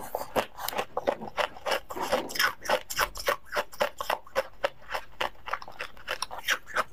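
A bitten-off piece of frozen Tartary buckwheat ice being chewed: a quick run of sharp crunches and crackles as the ice breaks between the teeth, several a second.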